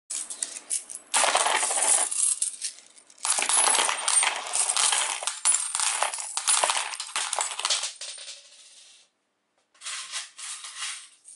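Metal coins (Malaysian sen) pouring and clattering onto a phone's tempered-glass screen protector and onto each other, in two long showers, the second longer, then a few scattered clinks near the end.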